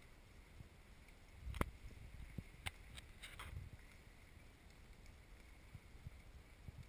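Faint low outdoor rumble, like wind on the microphone, with a few sharp clicks or knocks between about a second and a half and three and a half seconds in.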